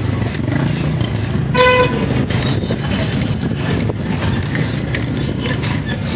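A short single horn toot about one and a half seconds in, over a steady low rumble of vehicle engines, with scattered small clicks.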